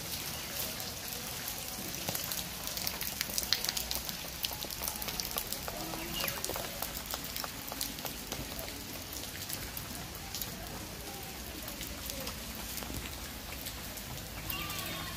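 Rain falling, with many separate drops ticking close by over a steady hiss; the drops are densest about three to five seconds in.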